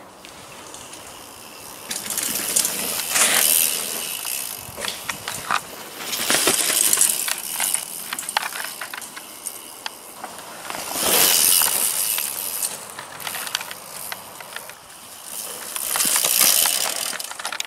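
Mountain bike going by on a dirt forest trail: knobby tyres rolling and skidding on loose dirt in four loud swells, with sharp clicks and knocks from the bike and the trail.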